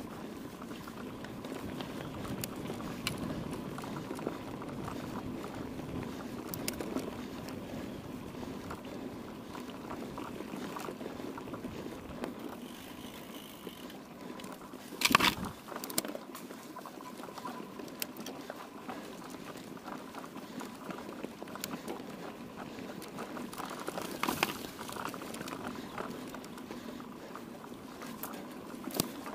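Mountain bike rolling over a rough dirt trail: steady tyre crunch and rattle with scattered clicks. There is a sharp clatter about halfway through and a smaller one later.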